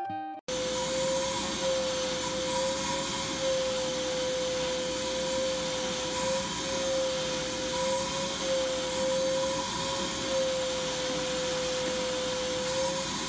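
A small wet/dry shop vacuum running steadily with a constant whine, its hose worked over a dog's coat. It starts suddenly about half a second in, as background music cuts off.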